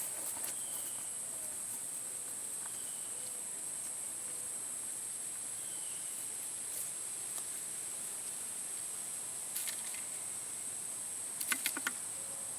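Insects chirring outdoors in a steady, high-pitched drone, with a few short rustles or steps near the end.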